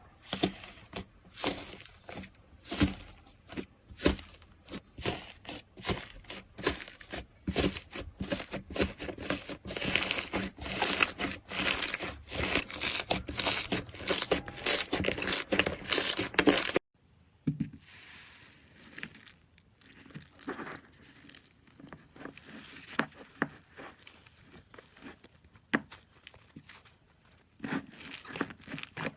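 Slime being squeezed and poked by hands, giving fast runs of crackly, sticky pops and clicks. About two-thirds of the way through it cuts suddenly to a quieter stretch with sparser pops.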